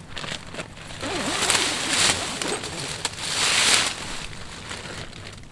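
A long zipper on a zip-up poncho bedroll being unzipped in two drawn-out pulls, the first about a second in and the second about three seconds in.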